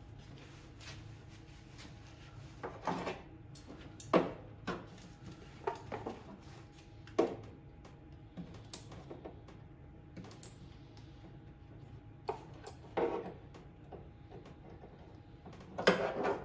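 Irregular clicks and knocks of hand work on the mower's fuel line as an inline fuel filter is fitted, a dozen or so spread unevenly with a louder cluster near the end, over a faint steady hum.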